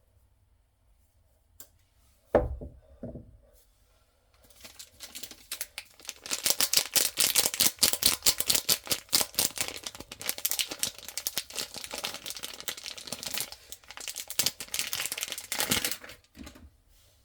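A thump about two seconds in, then a soap bar's wrapper being torn and crinkled open in a long run of dense crackling and ripping that stops shortly before the end.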